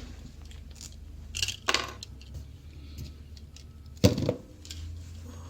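Small tools and parts being handled on a workbench during a solder repair: a few light clinks and clicks, the sharpest knock about four seconds in, over a steady low hum.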